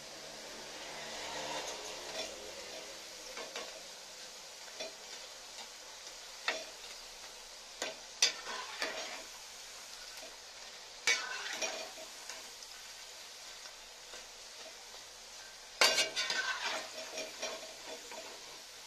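Cabbage and amaranth-leaf pakodi deep-frying in hot oil in a steel kadai, with a steady sizzle. A perforated steel skimmer scrapes and clinks against the pan several times as the fritters are lifted out, loudest near the end.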